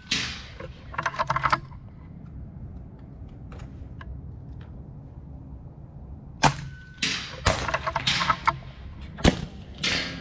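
Pre-charged pneumatic air rifles firing at a benchrest line: a string of sharp cracks, the clearest about six and a half and nine seconds in, with lighter clicks and knocks between and a quieter gap in the middle.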